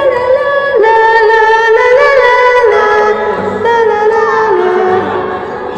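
Youth choir singing long held notes that step up and down in pitch, without clear words: the closing phrase of the song.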